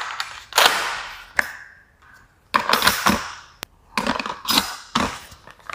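A series of plastic clacks and clicks from a toy XM1014 Benelli M4 gel blaster shotgun being handled and loaded, with one sharp click about two-thirds of the way through.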